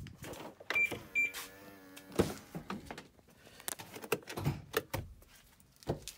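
Clicks and knocks as the driver's door of a BMW X5 E70 is opened, with two short high beeps about a second in and a brief hum just after.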